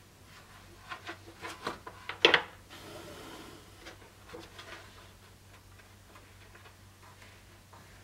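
A quick run of small clicks and taps from the wooden scabbard core being handled and fitted on the workbench, the loudest a little past two seconds in, followed by a short rubbing scrape and a few faint taps.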